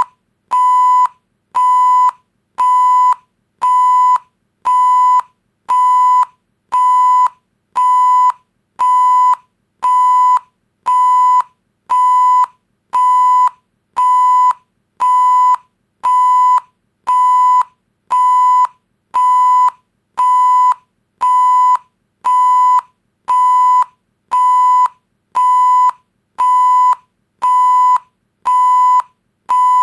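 Electronic beep tone, a steady pitch near 1 kHz, repeating evenly about once a second, each beep roughly half a second long.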